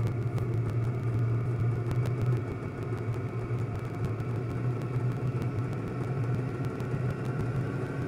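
Vevor 5 kW diesel air heater running through its start-up as the burner builds pressure and temperature after ignition: a steady fan-and-combustion rush over a low hum, with faint light ticks from the fuel pump.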